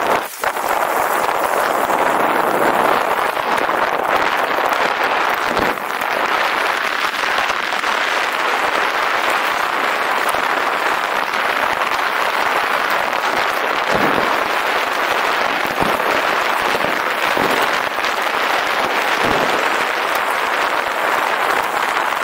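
Steady rushing and rattling of a bicycle descending a rough mountain track: tyre and frame noise mixed with wind on the camera microphone, with a few short knocks from bumps.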